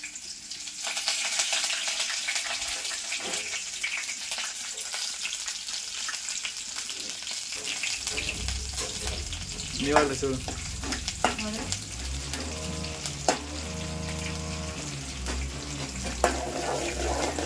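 Sliced onion, green chillies and curry leaves sizzling in hot oil in an aluminium pot, with scattered crackles. The sizzle starts abruptly about a second in, as they are tipped into the oil.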